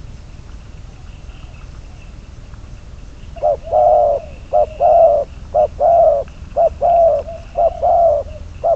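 Spotted dove cooing: after a few seconds of quiet, a run of short, low coos in repeated phrases.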